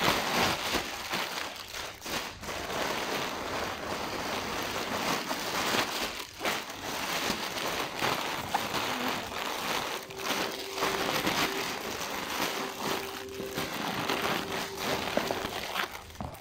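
Thin plastic bag crinkling and rustling unevenly as it is pulled, folded and pressed around a packed dress.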